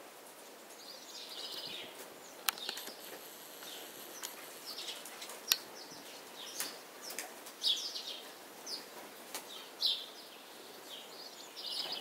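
House sparrows chirping at a birdbath, with short chirps scattered through, wing flutters as birds come and go, and a couple of sharp clicks.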